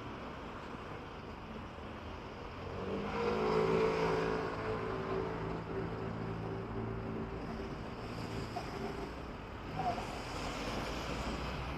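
A motor vehicle's engine heard passing close over steady outdoor background noise, swelling about three seconds in and fading away over the next several seconds.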